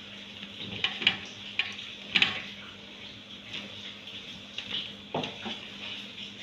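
Hands kneading and rubbing crumbly pastry dough in a stainless steel tray, with irregular knocks and scrapes of hands and dough against the metal, the sharpest about two seconds in.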